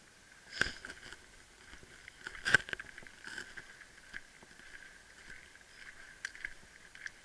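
Irregular scuffs and knocks, about half a dozen over several seconds, the loudest about two and a half seconds in, over a faint steady hiss.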